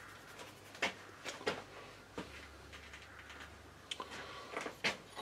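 A few faint, scattered clicks and taps, like small parts being handled, in a quiet workshop with the lathe stopped.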